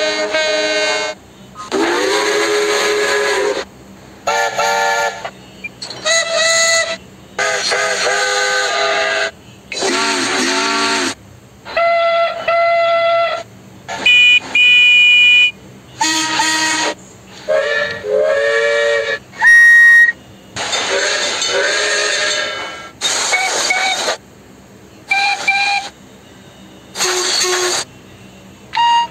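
A string of about fifteen separate train whistle and horn blasts, one after another with short gaps. Each lasts one to two seconds, and some slide in pitch.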